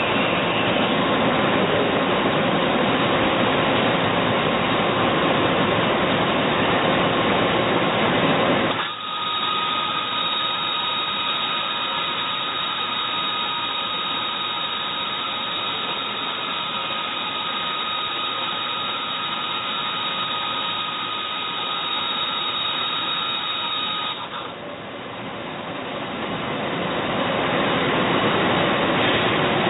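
Doosan Puma ST20G CNC lathe running: a broad mechanical noise gives way suddenly about nine seconds in to a steadier high whine, which ends about twenty-four seconds in as the broader noise returns and builds up.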